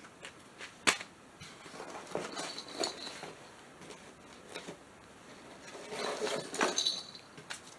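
Faint rustling and light clicks of packaging and small items being handled out of a box, with a sharper click about a second in and a louder patch of rustling near the end.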